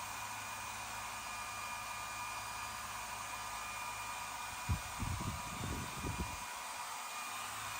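Steady whirring hiss of a small electric motor or fan, with a few dull low thumps about five to six seconds in.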